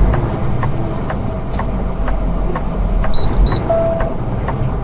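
Semi truck's engine and road noise heard from inside the cab, a steady low rumble with faint regular ticking. A short electronic beep sounds a little past the middle, followed by a brief lower tone.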